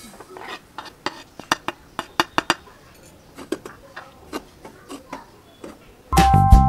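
Semolina poured into a frying pan and stirred with a spatula: a string of sharp taps and scrapes of bowl and spatula against the pan. Background music comes in loudly near the end.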